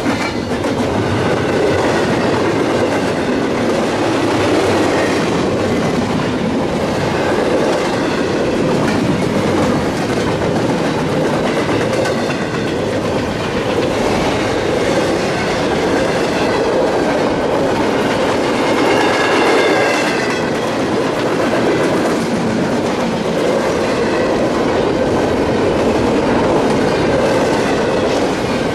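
Freight train cars rolling past on the rails: a steady loud rumble and clatter of wheels on track. Faint high squeals from the wheels come through about two-thirds of the way in.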